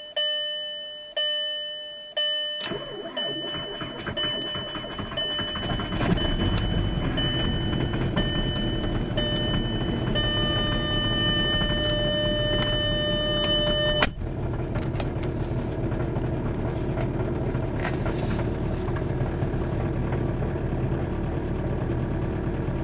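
2000 Volkswagen Jetta TDI's 1.9-litre turbodiesel cold-started at about −5 °F with no block heater: it cranks for a few seconds, catches about six seconds in and settles into a steady idle. A dashboard chime rings about once a second through the start and stops with a click about fourteen seconds in.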